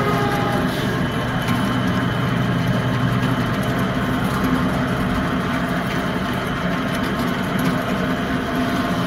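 Drill press motor running steadily while a bit drills through a tractor brake shoe and its lining: a constant, unchanging hum.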